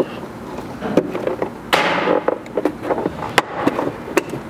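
A plastic pry tool working a painted plastic trim cover free from its clips. There are small knocks, a scraping rush about two seconds in, then sharp plastic clicks as the clips let go.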